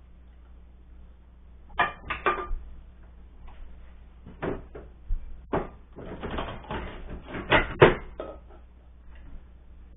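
Someone rummaging in a lower kitchen cabinet: scattered knocks and clatter of dishes being moved about. It grows busier and louder about six seconds in, with the sharpest knock near the end.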